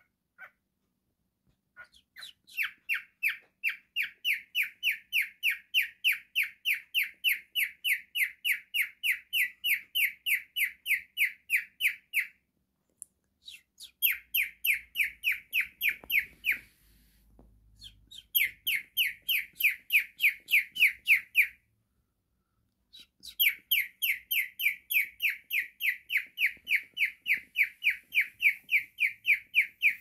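Cockatiel singing: long, fast, even runs of short repeated whistled chirps, broken by three short pauses.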